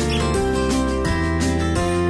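Background music: sustained pitched notes over a bass line, with a regular beat.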